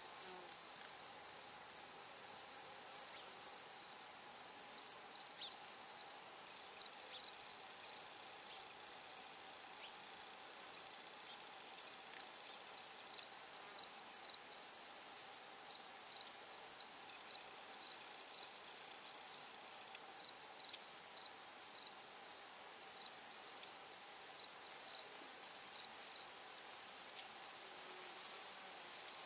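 Steady outdoor insect chorus: a continuous high-pitched trilling at two pitches, one with a fine rapid pulse, unbroken throughout.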